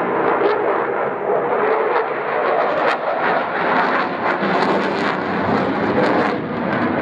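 Eurofighter Typhoon's twin EJ200 turbofan engines in afterburner: loud, steady jet noise with sharp crackles through the middle.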